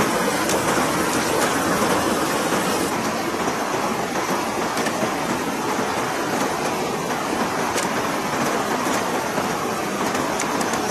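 River water rushing over rocks and rapids: a steady, even hiss. A few light knocks of bamboo poles being handled on the rock are heard over it.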